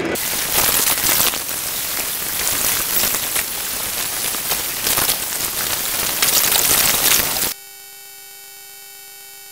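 Plastic carrier bag rustling and crackling against the camera microphone. About seven and a half seconds in it cuts off suddenly, and a steady, quieter electrical buzz takes its place.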